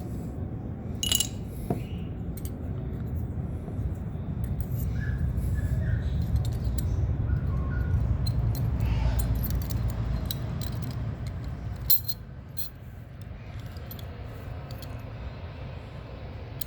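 Light metallic clinks and taps of tools and brake parts as a scooter's brake is reassembled, a few sharp clicks standing out, over a steady low rumble that drops away about twelve seconds in.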